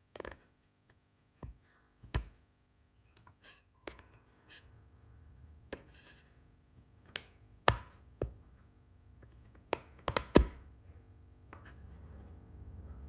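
Single key presses on a Wooting 60HE keyboard, a dozen or so short clicks spaced irregularly, a couple of them close together about ten seconds in. A low hum comes up near the end.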